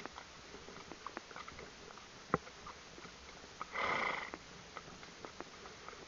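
Horses on the move: scattered light clicks of hooves and tack, one sharp click about two and a half seconds in, and a short breathy blow near four seconds in.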